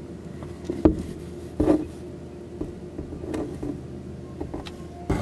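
Handling noise from the camera and a cardboard box: several soft knocks and brief rustles, the sharpest about a second in and near the end, over a steady low hum.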